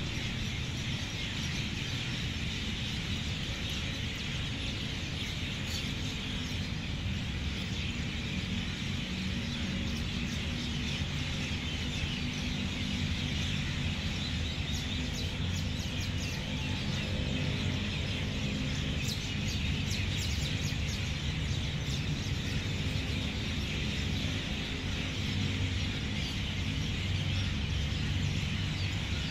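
Many birds chirping and calling together in a dense, continuous chorus, with a cluster of sharper high chirps about two-thirds of the way through, over a steady low rumble.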